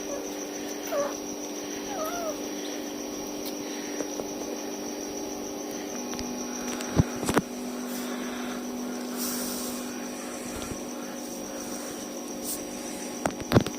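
Tiny kittens mewing faintly in a few short cries over the first few seconds, over a steady hum. Two sharp clicks or knocks come about halfway through and again near the end.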